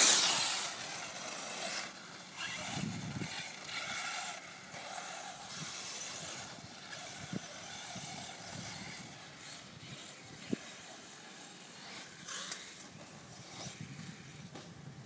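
Associated SC8e electric short-course RC truck with a 2200kv brushless motor on a 6S battery, running on a dirt track. It is loud as it passes close by at the start, then its motor whine rises and falls as it laps farther off, with a couple of sharp knocks.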